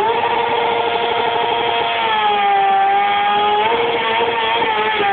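Motorcycle engine held at high, steady revs during a burnout, the rear tyre spinning and smoking on the asphalt; the pitch sags slightly around the middle and comes back up.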